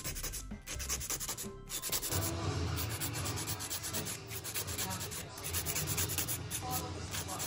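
A hand nail file scraping back and forth across long fingernails in quick, repeated strokes.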